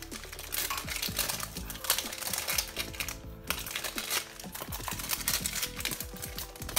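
Plastic shrink-wrap on a tin crinkling and crackling as it is picked at and torn off, a dense run of small sharp clicks, over background music.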